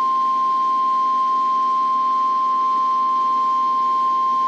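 NOAA Weather Radio warning alarm tone: a single steady high tone of about 1050 Hz over radio hiss, the attention signal that comes before a severe thunderstorm warning is read.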